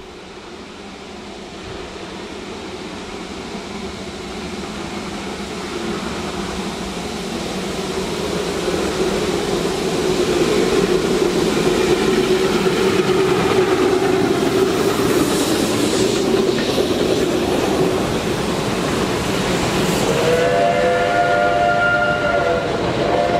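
Narrow-gauge steam train, double-headed by an NGG16 Garratt and 12A, approaching and crossing a bridge. Its running grows louder over the first ten seconds, with the Garratt doing all the work and 12A coasting. About twenty seconds in, a steam whistle sounds a sustained chord-like note that is held to the end.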